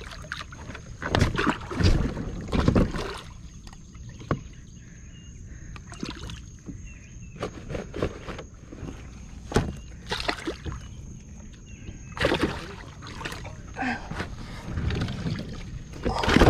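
Water sloshing and splashing irregularly around a small boat, with several louder splashy bursts in the first few seconds and again after about ten seconds. A faint steady high whine runs underneath.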